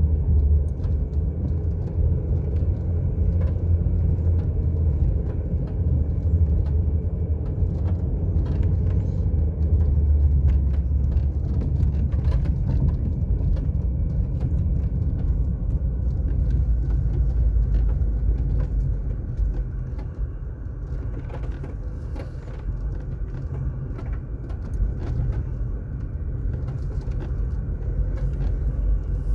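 Car driving on an asphalt road: a steady low rumble of tyres and engine, easing a little about two-thirds of the way through, with scattered faint clicks.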